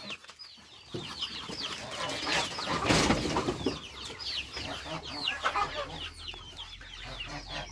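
Chickens calling: a run of many short, high, falling peeps several times a second, with a short noisy burst about three seconds in.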